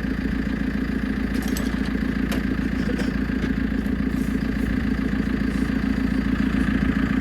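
JCB 4CX backhoe loader's diesel engine running steadily with a high steady whine over its drone and a few light clicks, as the front bucket pushes and levels stone.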